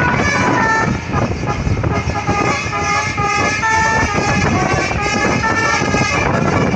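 A bus's Basuri musical 'telolet' horn playing a quick tune of short stepped notes, heard from a motorbike riding close behind, over wind and road rumble.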